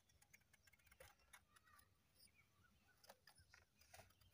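Very faint, irregular scraping clicks of a small kitchen knife peeling the skin off a pointed gourd (parwal) by hand.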